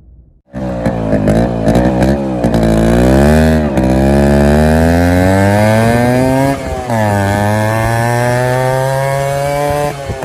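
Yamaha RX135's single-cylinder two-stroke engine heard through its exhaust, starting with a few quick throttle blips, then climbing steadily in revs. Its pitch drops briefly about two-thirds of the way through, then climbs again.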